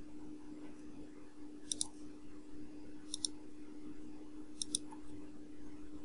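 Computer mouse buttons clicking three times, about a second and a half apart, each click heard as a quick double tick, over a steady low electrical hum.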